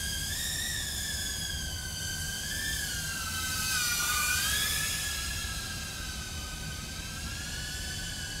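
Small 2-inch FPV drone's brushless motors and propellers whining in flight, a high pitch that wavers with throttle. About four seconds in it gets louder and dips lower before settling back up.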